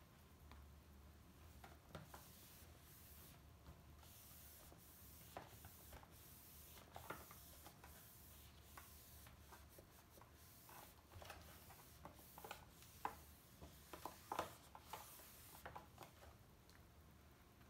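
Faint rubbing of a damp microfiber cloth wiped back and forth across an LCD monitor screen, in short strokes with a few sharper ticks, stopping near the end.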